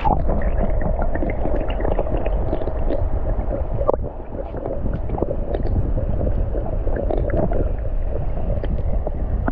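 Flowing river water heard underwater through a submerged camera: a loud, muffled rushing with scattered small ticks and clicks. It starts abruptly as the camera goes under.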